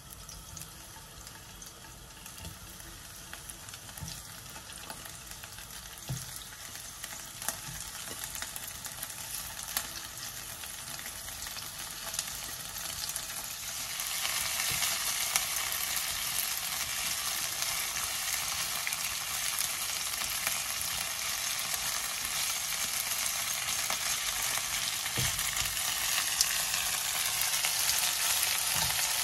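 Raw king prawns sizzling in hot oil with sliced chili in a nonstick frying pan, with scattered light ticks as they are laid in and moved about with a silicone spatula. The sizzle gets louder about halfway through, once the pan is full of prawns.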